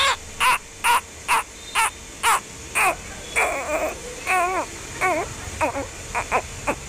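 A mallard duckling peeping over and over: loud, short, high calls that fall in pitch, about two a second, with a quicker run of chirps in the middle.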